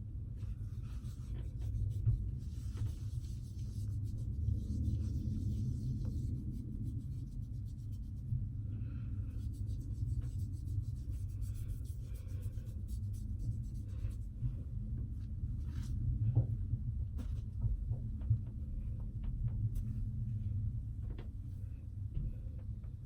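Soft, scratchy rubbing of a folded paper towel damp with witch hazel wiped over the face, with small clicks, over a steady low rumble.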